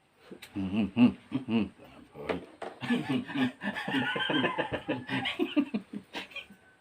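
People laughing in short bursts of chuckling, with a higher-pitched laugh joining through the middle.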